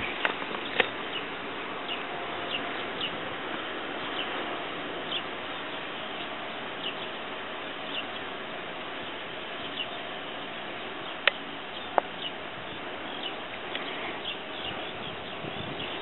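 A flock of small birds perched on a high-voltage pylon, giving many short, high chirps scattered over a steady hiss. Two sharp clicks come a little after the middle.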